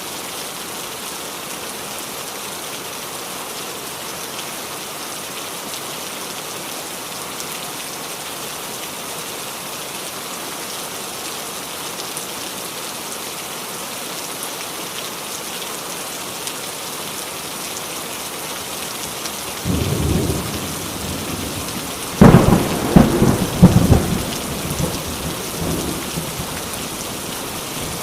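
Heavy rain falling steadily. Near the end, a low rumble of thunder, then a loud crackling thunderclap with several sharp peaks that rolls away over a few seconds.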